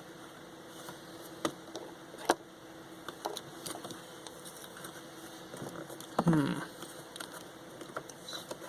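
Scattered small clicks and taps of hands working plastic parts and wires while a headset is taken apart, with one sharper click about two seconds in.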